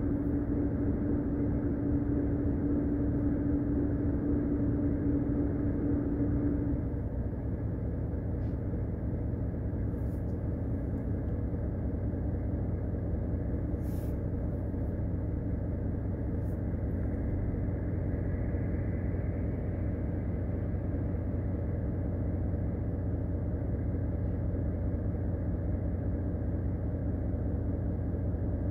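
A lorry's diesel engine idles, a steady low drone heard from inside the cab. A steady hum over it cuts off about a quarter of the way through, and there are a few faint clicks.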